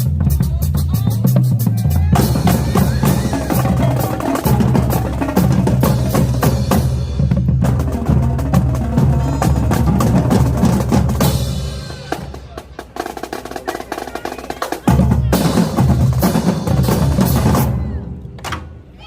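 Marching drumline playing a loud cadence on snare drums and pitched bass drums, with rolls and rim hits. About two-thirds in it drops quieter for a few seconds, then comes back in loud and stops shortly before the end.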